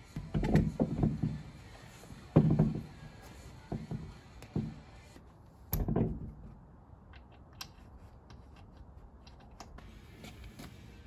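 A heavy spare wheel and off-road tyre thudding and knocking against the Land Rover Defender's rear-door wheel carrier as it is lifted into place: a string of dull thumps over about six seconds, the loudest about two seconds in. After that come only a few faint light clicks.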